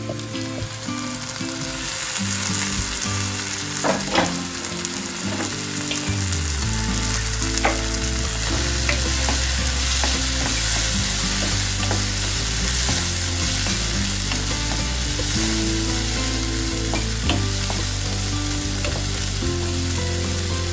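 Diced tomatoes, carrots and onions sizzling as they fry in oil in a nonstick kadai, stirred with a wooden spatula that now and then knocks against the pan.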